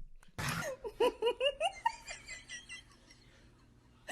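A person laughing: a quick run of short pitched ha-ha sounds for about a second and a half, then dying away to quiet.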